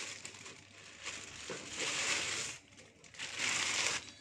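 Thin plastic carrier bag crinkling as hands handle it over a steel pot, in two bouts: one starting about a second in and lasting over a second, and another near the end after a short pause.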